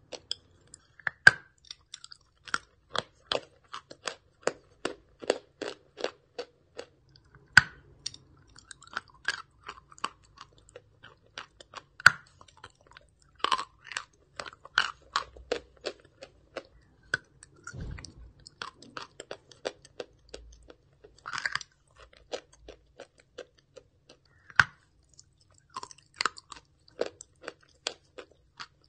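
A person chewing a big piece of chalk dipped in paste, close to the microphone: a steady run of crisp crunches, two or three a second, broken by four sharper, louder snaps as pieces are bitten off.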